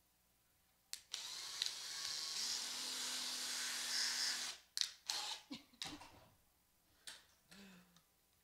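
Cordless drill running steadily for about three and a half seconds, widening a hole in the bottom of a plastic water bottle. It is followed by a few short clicks and knocks as the drill and bottle are handled.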